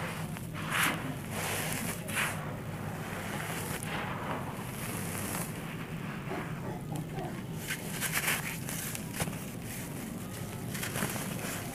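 Hands sweeping, scooping and pressing dry, powdery red sand, the grains sliding and crumbling in short rustling bursts every second or few, over a steady low hum.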